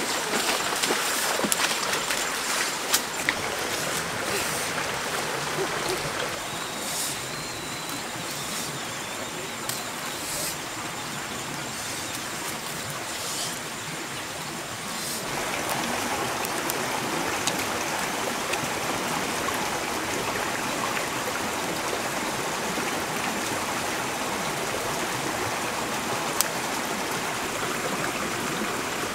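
Steady rush of flowing river water. It dips slightly for a stretch, then comes back fuller about halfway through. A few sharp clicks stand out near the start and near the end.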